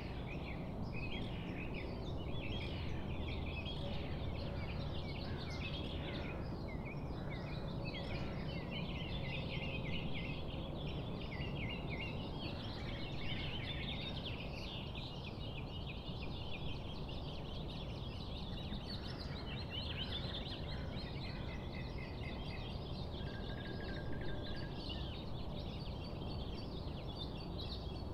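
A dense chorus of many birds chirping and trilling at once over a steady low rumble of background noise, with one short held whistle late on.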